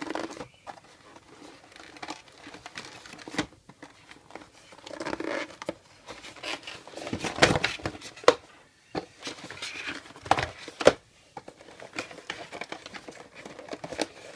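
Cardboard box and its packaging being handled and rummaged through by hand: crinkling and rustling with scattered taps and sharp knocks, the loudest about eight and eleven seconds in.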